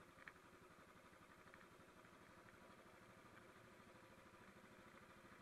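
Royal Enfield motorcycle engine running steadily while riding, very faint, its fast even pulses barely above near silence.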